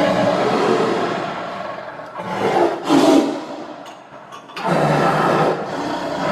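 Angry tiger growling and roaring: a long low growl, a louder roar about three seconds in, a short lull, then another long growl.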